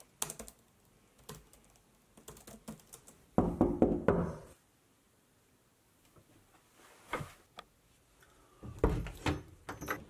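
Light clicks of typing on a laptop keyboard, broken by two loud bursts of knocking on a wooden door, one about three and a half seconds in and one near the end.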